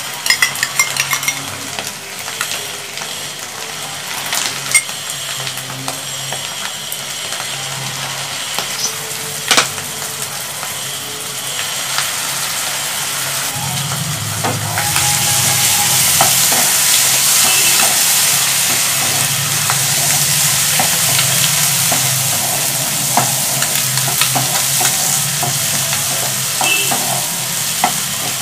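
Chopped vegetables and sauces sizzling in a nonstick frying pan, with a few sharp spatula clicks. About halfway in the sizzle grows louder, and near the end a spatula stirs and scrapes the vegetables around the pan.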